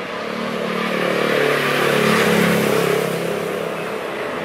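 A motor vehicle passing close by on a road, its engine and tyre noise swelling to a peak about two seconds in and then fading, over steady road-traffic noise.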